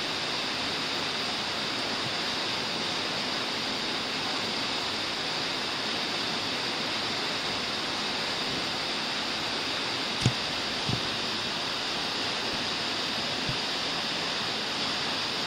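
Steady rushing hiss, even and unchanging, with two short knocks about ten seconds in and a fainter one a few seconds later.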